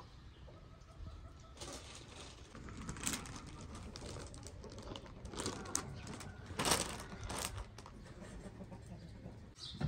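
Plastic tablecloth rustling and crinkling as it is shaken out and spread over a rug, in several short bursts, the loudest about two-thirds of the way in. Birds call faintly in the background.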